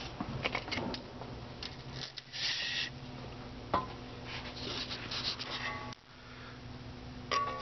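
Scattered rustling, clicks and light clatter of objects being handled, over a steady low hum. The handling noise breaks off abruptly about six seconds in.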